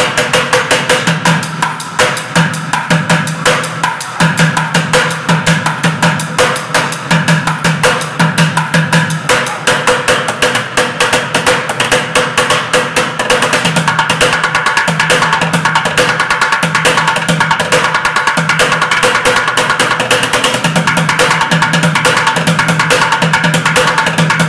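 White plastic buckets drummed with sticks in a fast bucket-drumming rhythm. About thirteen seconds in the strokes close up into a rapid, even roll.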